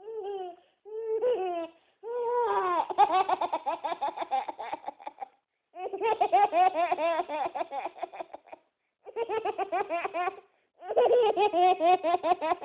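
A young child laughing hard, in repeated bouts of quick, high-pitched ha-ha pulses with short pauses for breath between them.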